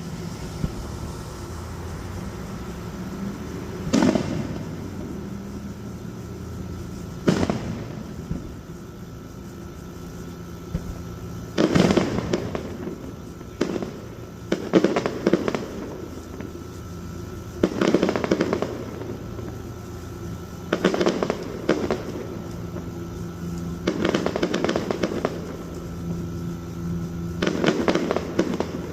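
Fireworks display: aerial shells bursting with sharp bangs every few seconds, several followed by a rapid crackle lasting up to a second, over a steady low background hum.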